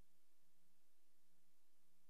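Near silence: faint steady hiss with a low hum.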